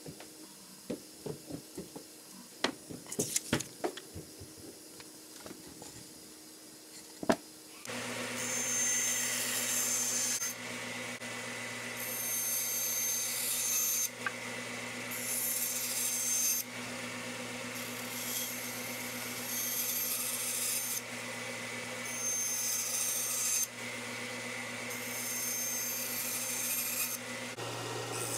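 Scattered taps and handling clicks. About eight seconds in a band saw starts and runs with a steady hum, and wood blocks are cut on it about six times, each cut a couple of seconds of sawing noise over the motor.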